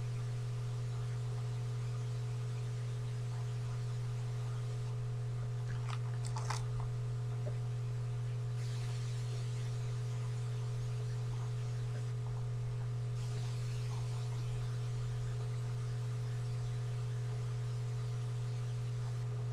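Steady low electrical hum with a fainter higher tone above it, and a couple of faint clicks about six seconds in.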